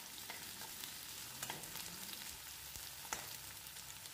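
Sliced onion, garlic and green chilli sizzling in hot mustard oil in a black kadai, stir-fried with a metal spatula that clicks against the pan a few times.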